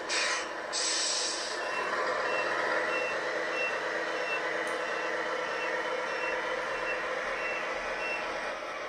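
A Tamiya 1/14 Mercedes Actros RC truck's sound unit: two short air hisses, then a steady simulated diesel engine under a reversing beeper that beeps about two and a half times a second and stops near the end, followed by another air hiss.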